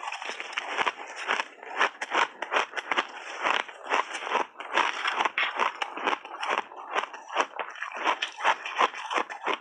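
Frozen mixed-berry ice balls being crunched and chewed close to the microphone: a dense, continuous run of sharp crackling crunches.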